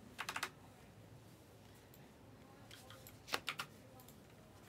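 Glossy Panini Select trading cards being flipped through by hand, giving light clicks as the cards snap off the stack. The clicks come in two quick clusters, one just after the start and one about three seconds in.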